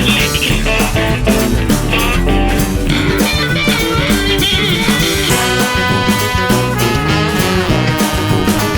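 Upbeat background music with guitar and a steady beat; at this loudness it covers any sound the toy trains make.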